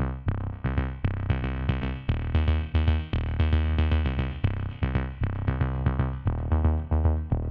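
Electronic background music: a quick, steady rhythm of short notes over a deep bass.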